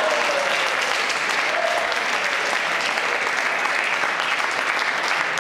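Spectators applauding in a sports hall: steady, dense clapping after a point in a table tennis match.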